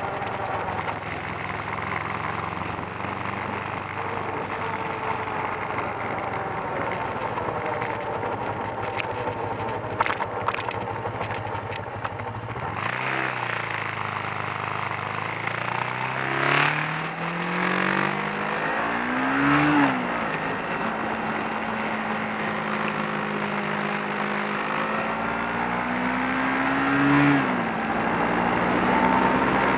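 Kawasaki 454 LTD's parallel-twin engine pulling the bike along at road speed. In the second half it climbs in pitch and drops back sharply twice, as it is revved up and shifted into a higher gear.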